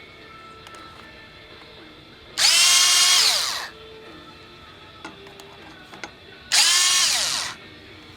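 Power drill run twice in short bursts of about a second, its motor whine rising to speed and winding down each time.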